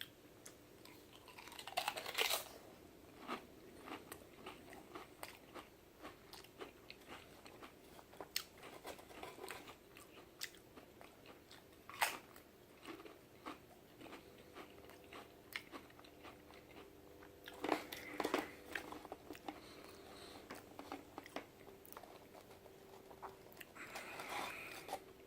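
A man crunching and chewing Pringles pizza-flavour potato chips, with many sharp crisp crunches scattered through the chewing, a few louder bites standing out.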